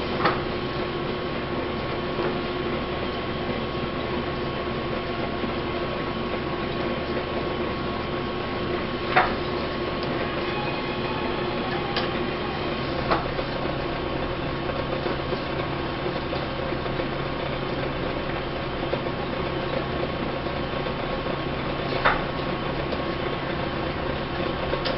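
Belt-driven Gray metal planer running, its table reciprocating: a steady mechanical hum of belts, pulleys and gearing. A sharp clack comes a few times, about nine seconds apart, then three or four, as the stop dog trips the control arm and the belts shift to reverse the table at the end of a stroke.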